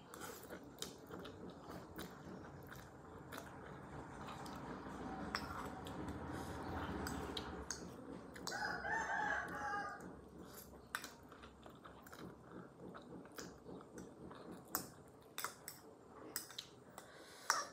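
A person eating noodles: chewing, with a metal fork clicking against a small ceramic bowl. About eight and a half seconds in, a rooster crows once for about a second and a half.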